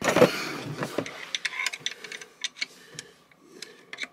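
Hand tools on a bolt in the engine bay: a short rustle at the start, then a string of light, irregular metal clicks and taps.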